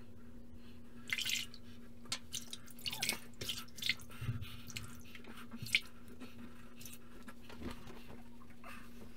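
Water splashing and dripping at a bathroom sink in a run of short, sharp splashes as a freshly shaved face is rinsed, the loudest splash about six seconds in. Then a few softer rustles as it is patted dry.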